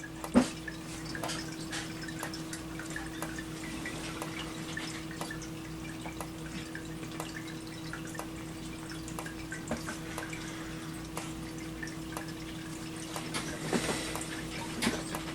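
System Sensor SpectrAlert Advance ceiling strobe in alarm, giving faint ticks as it flashes, over a steady low electrical hum. One sharp knock sounds about half a second in.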